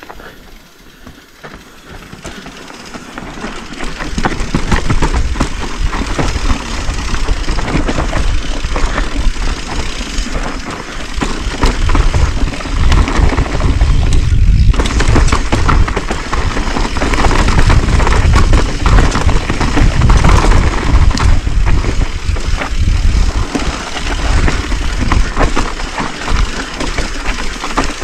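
Mountain bike riding down a dirt singletrack: tyres crunching over loose dirt and leaf litter, the bike rattling and clattering over the bumps, with wind rumbling on the microphone. It gets much louder about four seconds in.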